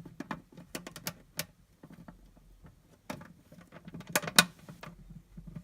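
Irregular light clicks and taps of hands handling small hard parts, a few a second, with a louder cluster of clicks about four seconds in.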